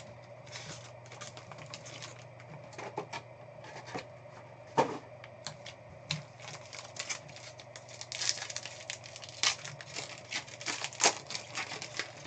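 Foil trading-card pack being handled and torn open by hand: a string of short crinkles and crackles that grows busier about eight seconds in, over a faint steady hum.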